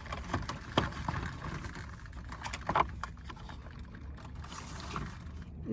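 Cardboard advent calendar packaging being handled as someone struggles to open a door: scattered soft clicks and rustles.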